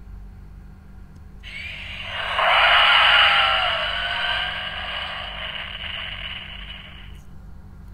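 Electronic sound effect played through the small speaker of the DX Earth Garon mecha toy after a short press of its button. It is a rough, noisy cry with a gliding tone that starts about a second and a half in, peaks around three seconds in, and fades out by about seven seconds in.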